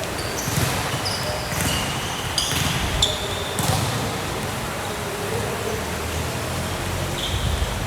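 Sports shoes squeaking sharply on a gym court floor several times, mostly in the first few seconds, with a ball thudding and general court noise beneath.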